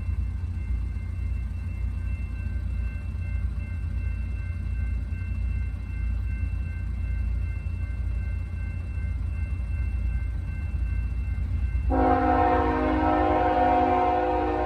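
Freight train rumbling low and steady, then its locomotive horn sounds suddenly about twelve seconds in, a loud multi-note chord held to the end.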